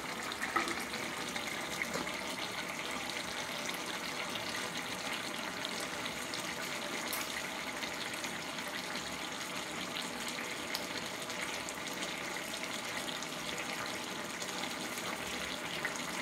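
Chinese potato (koorkka) masala curry boiling in a pan, a steady bubbling as its liquid cooks down to a thick gravy.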